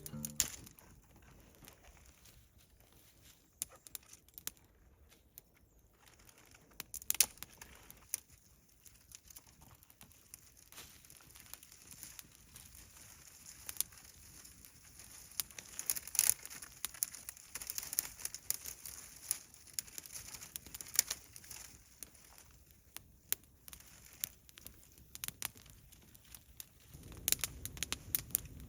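Dry fallen leaves and twigs crackling and crinkling, with irregular sharp snaps and no steady rhythm. A low steady noise comes in near the end.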